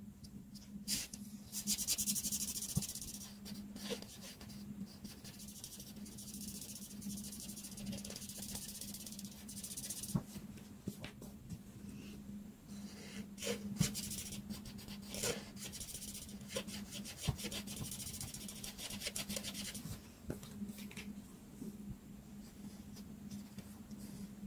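Art marker tip rubbing across paper in quick repeated strokes as an area is coloured in, in two long stretches, with light clicks and taps in between. A steady low hum runs underneath.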